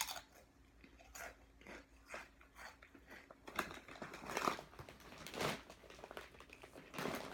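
Someone biting and chewing kettle-cooked potato chips: a string of irregular crisp crunches, loudest in the middle stretch.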